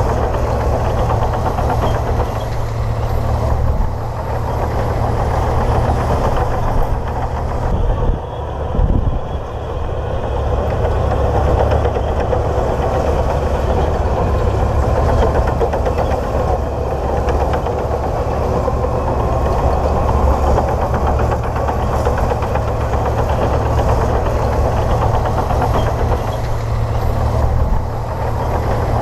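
Komatsu D58P bulldozer's diesel engine running steadily, with a brief dip in loudness about eight seconds in.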